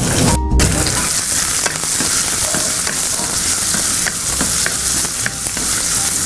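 Chopped onion sizzling in hot cow ghee in a metal kadai, giving a steady frying hiss, while a wooden spatula stirs and scrapes the pan with light ticks.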